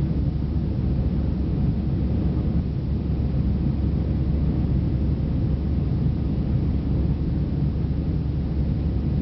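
Jet airliner cabin noise in flight: a steady low rumble of engines and airflow heard from a window seat, even throughout with no changes.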